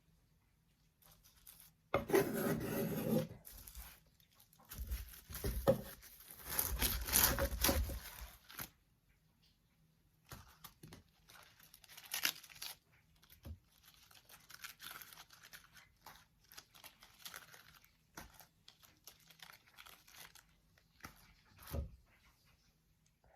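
Irregular rubbing, scraping and rustling of hands working with food and kitchen items, in uneven bursts that are loudest in the first third and softer afterwards.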